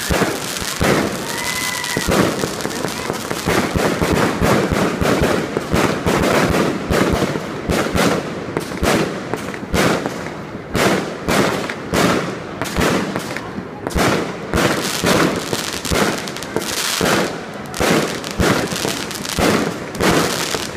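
Aerial fireworks going off in a continuous barrage: bangs several a second over steady crackling.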